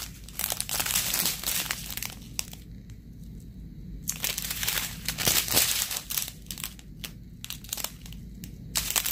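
Strips of small clear plastic bags of diamond-painting drills crinkling as they are handled and turned, in irregular bursts with a quieter pause a few seconds in.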